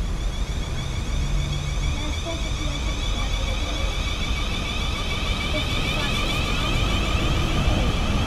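South Western Railway electric multiple unit approaching and running in alongside the platform, its traction equipment whining in several steady high tones that grow louder as it nears, over a low rumble.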